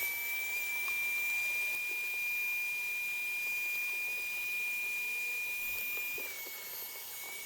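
A small high-speed electric motor spinning up and running steadily with a high whine over a hiss, its pitch dropping slightly about six seconds in as if taking load.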